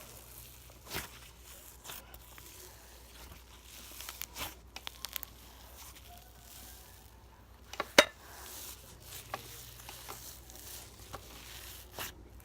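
Hands stretching and squishing slime: scattered sticky crackles and small clicks, with one sharp pop about eight seconds in.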